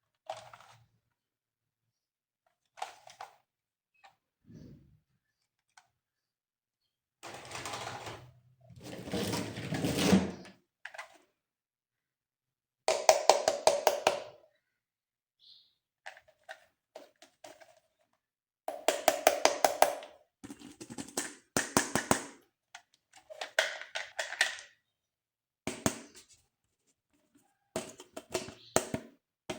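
Plastic toys clicking and rattling as they are handled, in short bursts of rapid clicks broken by pauses, with a few duller thunks.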